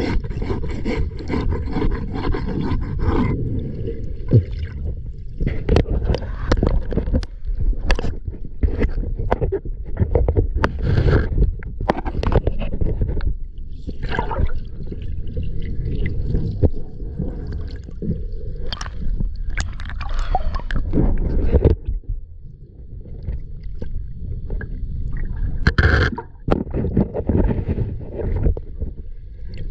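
Muffled underwater noise from a camera held below a catamaran's hull: a heavy low rumble of moving water against the camera, with irregular knocks and scrapes. A brighter hiss in the first three seconds cuts off suddenly.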